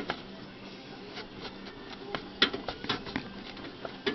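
Irregular clicks and knocks of an air-conditioner blower wheel being rocked side to side and pulled on its rusty motor shaft, with a cluster of knocks in the second half.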